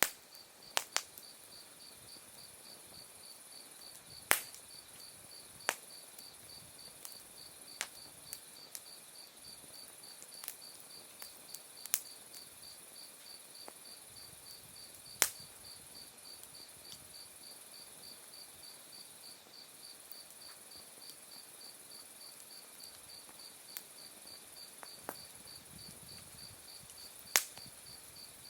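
Autumn night insects calling: a steady, evenly pulsing high trill with a thinner steady high buzz above it. Over this a wood campfire crackles with scattered sharp pops of bursting firewood, three of them loud.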